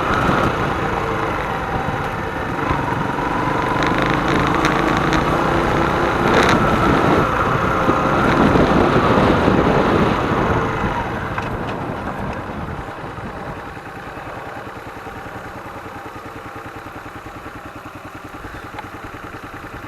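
Small single-cylinder motorcycle engine of a Hyosung Karion running under way, its pitch rising and falling with the throttle. About twelve seconds in it drops back to a quieter, even idle.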